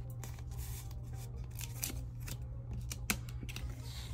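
Paper banknotes and envelopes being handled and stuffed: irregular crisp crinkles and ticks, with one sharper click about three seconds in, over a steady low hum.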